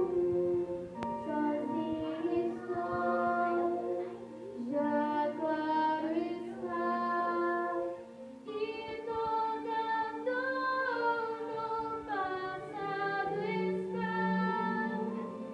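A song sung by several voices together, women and children, carrying a melody that moves from note to note.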